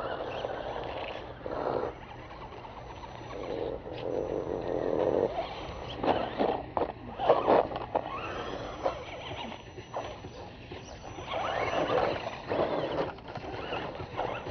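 Electric motor and geared drivetrain of an Axial SCX10 1/10-scale RC rock crawler whining as it drives past at crawling speed, the pitch rising and falling with the throttle. Sharp clicks and knocks come around six to eight seconds in as the tyres and chassis work over a concrete edge.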